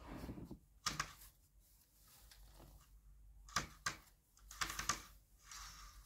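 A sheer tulle curtain being taken down from its rail: sharp plastic clicks, one about a second in and a quick pair past the middle, then soft rustling of the fabric as it drops.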